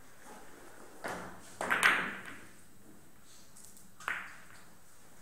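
Billiard shot on a carom table: the cue tip strikes the cue ball about a second in, then a quick, louder cluster of ivory-like clacks as the balls collide. A single further click follows about four seconds in.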